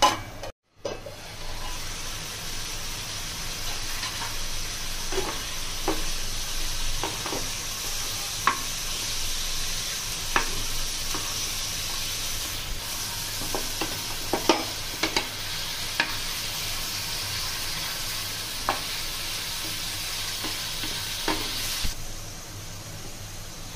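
Food sizzling steadily in a hot frying pan while being stirred, with a spatula clicking and scraping against the pan every second or two. The sizzling starts about a second in and stops near the end.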